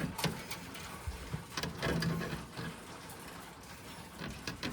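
Thin fish wire being fed through a hole in a truck's steel frame: faint scattered clicks and light scraping of wire against metal.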